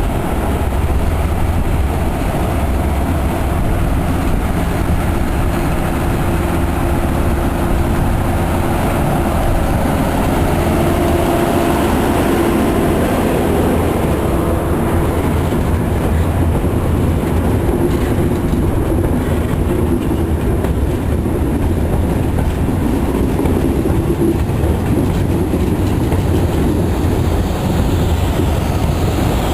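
Brissoneau et Lotz diesel locomotive hauling a work train of ballast-loaded hopper cars as it pulls out: engine running under load, with the cars' wheels clattering over the rail joints. Loud and steady, with a deep rumble throughout.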